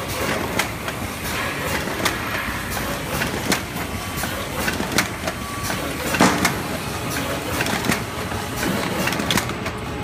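Automatic cube-box tissue packing machine running: a continuous mechanical clatter with frequent sharp clicks and knocks from its moving parts.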